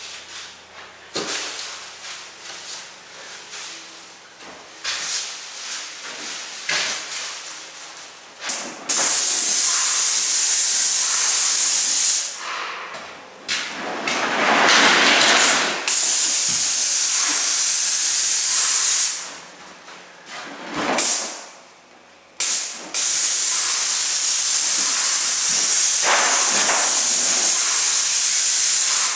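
Airless paint spray gun hissing in several long, steady bursts as the trigger is pulled and released. It starts about nine seconds in, after a few light knocks, and the last burst runs on unbroken for the final seven seconds.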